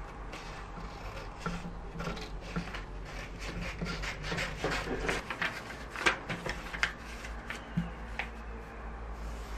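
Scissors cutting through a sheet of printer paper in a run of short snips, with the paper rustling and crinkling as it is handled.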